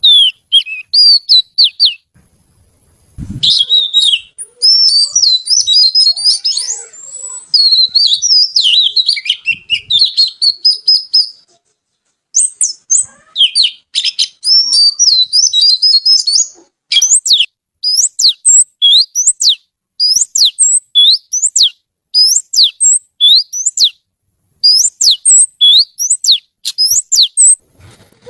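Oriental magpie-robin (kacer) singing loudly: a long, varied warbling phrase, then after a pause a run of repeated sharp whistled notes, each sweeping downward, about two a second.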